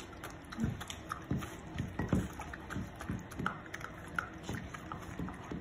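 Dogs eating from dishes: irregular wet licking, lapping and chewing smacks.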